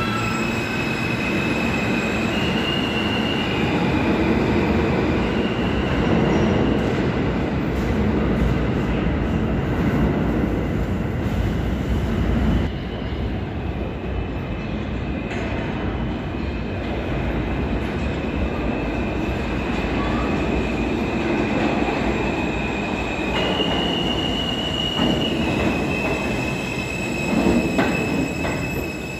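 R160 subway train pulling out of the station, its wheels rumbling on the rails with high-pitched squeals. After a sudden cut about 13 seconds in, another R160 approaches and rolls into the station, its wheels squealing again from about 23 seconds in.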